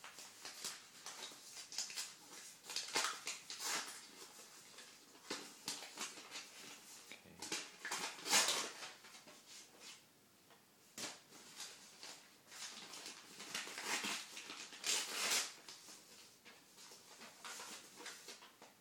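Paper wrapping and a mailing envelope rustling and crinkling in the hands as the wrapped cards are unfolded, in irregular bursts, loudest about eight seconds in.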